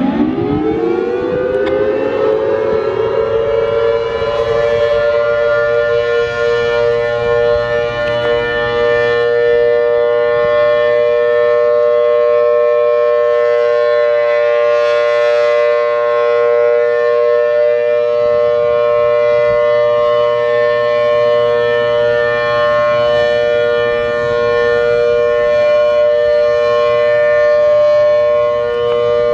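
Federal Sign & Signal Thunderbolt 1000 rotating warning siren, a 4/5-port dual-tone unit, sounding the steady Alert signal for a siren test. It winds up, rising in pitch over the first few seconds, then holds a loud steady two-note chord.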